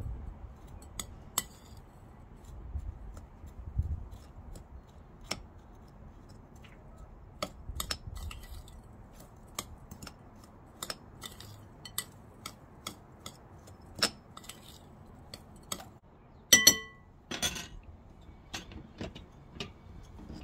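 Metal spoon clinking and scraping against a glass mixing bowl while stirring cheese and sugar, in irregular light taps. About three-quarters of the way through comes a louder clink that rings briefly.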